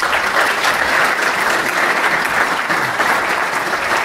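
Audience applauding steadily, welcoming a speaker to the lectern.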